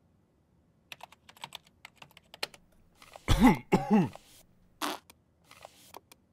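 Computer keyboard typing in scattered clicks, broken about three seconds in by a man's short two-part vocal sound whose pitch rises and falls, then a few more keystrokes.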